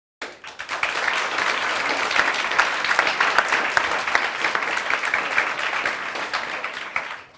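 Studio audience applauding: many hands clapping, starting abruptly just after the start, holding steady, and fading out near the end.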